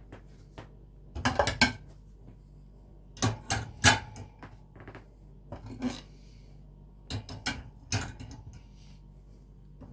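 Plates being slotted one by one into a metal wire dish-drying rack, clinking against the wires and against each other in four short bursts of clicks.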